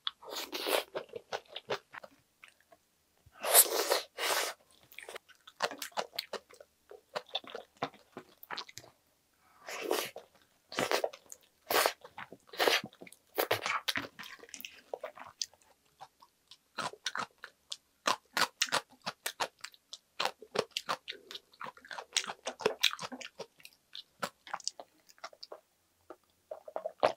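Close-miked chewing of kimchi and egg rice, with many small crisp crunches from the kimchi and a few louder bursts of eating noise.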